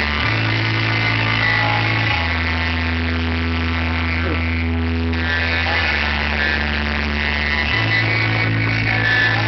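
Bass-heavy music blasting from a Volkswagen Gol's car sound system. Long, loud low bass notes change pitch every two to three seconds under the rest of the track.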